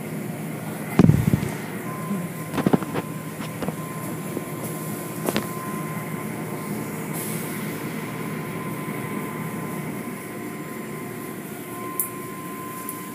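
Automatic tunnel car wash heard from inside the car: a steady rush of water spray and machinery, with cloth brushes and strips slapping and thudding against the body, loudest about a second in and again around three seconds in. A faint steady whine runs under it from about two seconds in.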